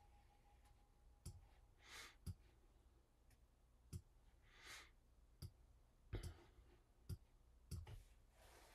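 Near silence in a small room. The last of a steady bell tone dies away in the first second or so. Then come about seven faint, short clicks spread through the rest and two or three soft breaths.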